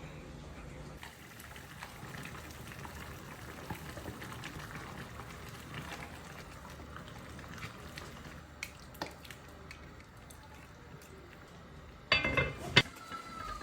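Food cooking on the stove with a steady bubbling hiss and scattered light clicks, then a loud clatter of cookware about twelve seconds in.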